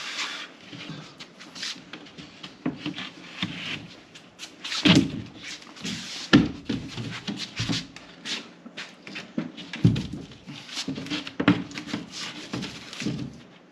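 Irregular knocks, scrapes and a few heavier thuds from sheetrock panels being handled and pushed into place against wall framing.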